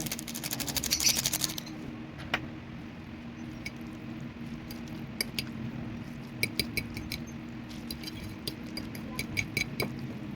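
Utensils clicking and clinking against a bowl or pot while handling ramen: a quick run of small clicks at the start, then scattered light taps, over a steady low hum.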